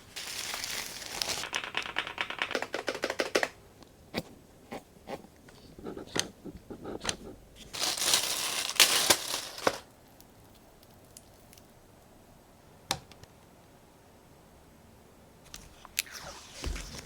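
Keyboard packaging being torn and crinkled open, with a long ripping burst at the start and another near the middle. Scattered clicks and taps of handling come between them, and a low thump comes near the end.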